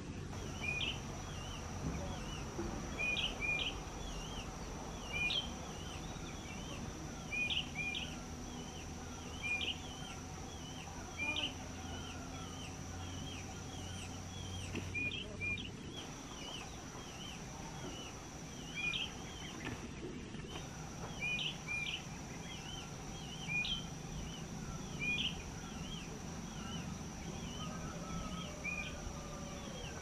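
Brown bullfinches calling: short, hooked whistled notes repeated about once a second, over a steady high-pitched drone.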